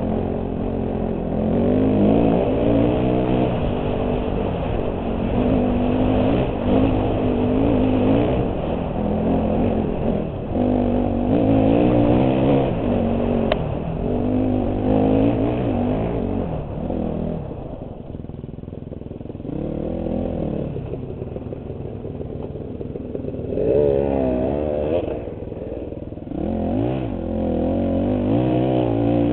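2008 KTM 250 XC-F's single-cylinder four-stroke engine, revving up and down over and over as the throttle is opened and closed. It settles lower and quieter for a few seconds a little past the middle, then revs sharply again.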